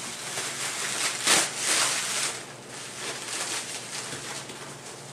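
Cellophane and bubble-wrap packaging crinkling and rustling as hands pull it apart, loudest for about a second near the start, then softer rustling.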